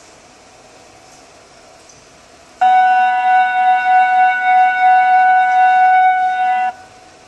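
A loud, steady pitched tone with overtones, heard as a hand turns a chrome cross-head basin tap. It starts suddenly about two and a half seconds in, holds one pitch with a slight waver in loudness, and cuts off about four seconds later.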